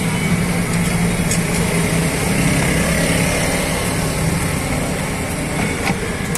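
Steady engine drone of street traffic, with a low hum.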